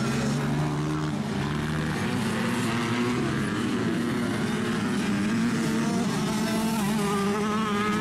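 Small two-stroke 85cc motocross bike engines racing, with more than one engine heard at once. Their pitch rises and falls as riders work the throttle and shift gears, with a rising rev near the end.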